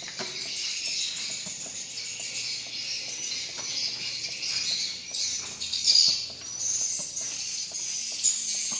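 Dense, continuous high-pitched twittering of swiftlet calls filling a swiftlet house, with a louder burst about six seconds in.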